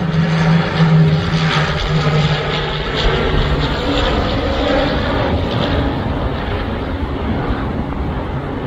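Twin-turboprop airliner flying low overhead on landing approach with its gear down: a steady propeller drone with a low hum that fades after about two seconds, leaving an even engine rush.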